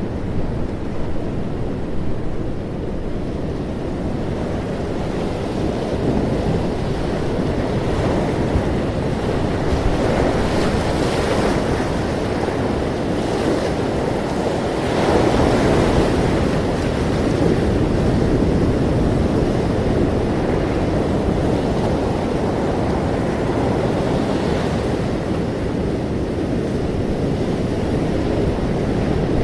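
Ocean waves washing on a shore in a continuous rushing surf, swelling louder now and then.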